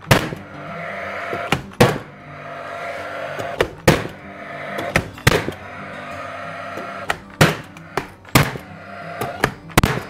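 Paslode nail gun driving nails into boards: a string of sharp bangs, one or two close together about every second and a half, over background music.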